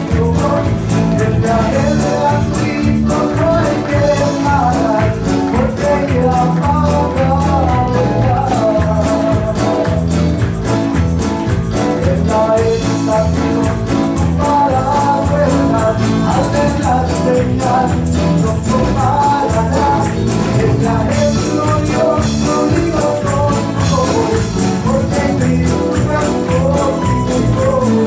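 Live church band playing an upbeat gospel song on electric guitars, bass guitar, keyboard and drum kit, with a steady beat.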